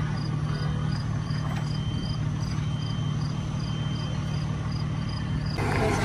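Cricket chirping in an even rhythm, about two and a half high chirps a second, over a steady low mechanical hum. Shortly before the end a louder rushing noise comes in.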